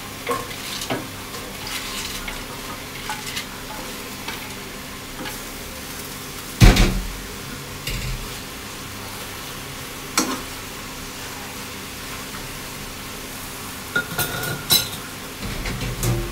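Chinese kale sprouts sizzling as they are stir-fried in a nonstick wok, a spatula scraping and knocking against the pan. A loud knock comes about seven seconds in and a sharper one around ten seconds, and metal utensils clink a few times near the end.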